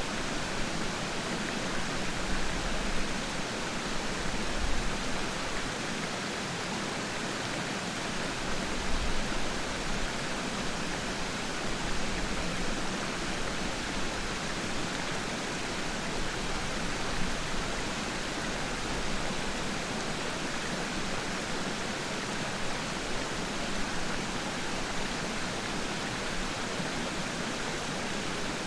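Waterfall: the steady, even rush of falling water at Peiran Falls.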